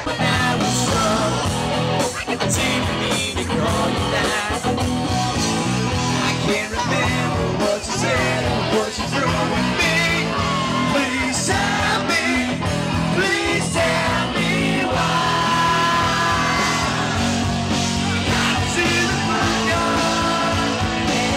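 Rock music: a band playing guitar and drums, with singing.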